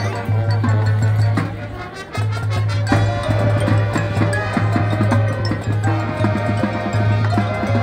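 High school marching band playing at a standstill: winds and brass over the front ensemble's marimbas and percussion, with a steady low bass note. The music dips briefly about two seconds in, then held chords come in.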